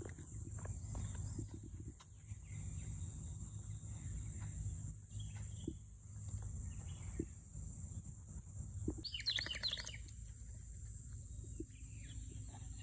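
Outdoor ambience: a steady low rumble under a steady high-pitched insect hum, with a short burst of rapid bird chirping about nine seconds in.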